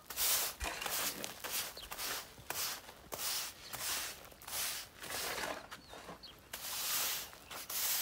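A stiff plastic-bristled push broom sweeping over dry, dusty dirt ground: brisk, repeated scratchy swishes, about one to two strokes a second.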